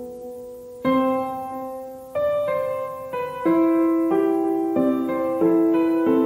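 Background music played on a piano-like keyboard: a slow melody of single notes and chords, each struck and left to fade before the next, roughly one a second.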